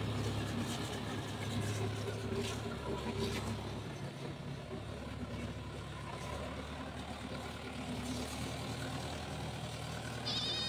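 Diesel tractor engine running steadily under load while pulling a rotary tiller through soil, the drone dropping a little about halfway through and rising again near the end.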